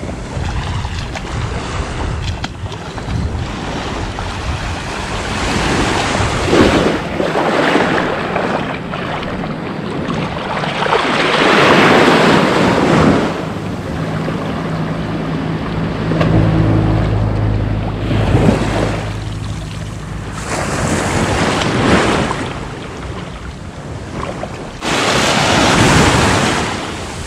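Shallow sea surf washing and splashing around a person wading in, swelling and falling every few seconds, with wind rumbling on the microphone. A low steady hum comes in for a few seconds about midway.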